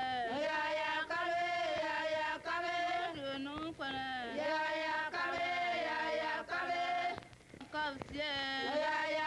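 Singing voices: a slow song of held notes that glide in pitch, with a short break about seven seconds in.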